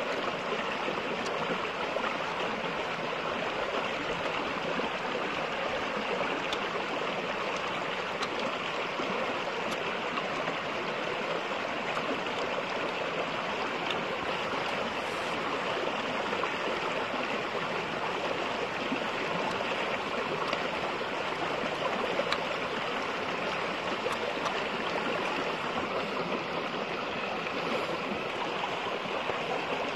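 Steady rushing noise of running water, with a few faint clicks over it.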